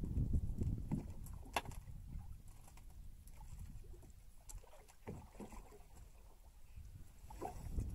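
Low thumps and knocks from someone moving about and handling fishing line in a small boat. The thumps are loudest in the first second, with a sharp click about one and a half seconds in and a few fainter knocks later.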